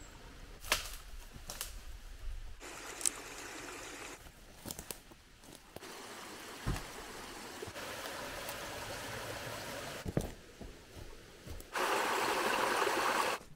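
Running water of a small forest stream, heard in several short takes. A couple of sharp crackles from a wood campfire come in the first two seconds. Near the end the splashing of a small waterfall over rocks close by is the loudest part.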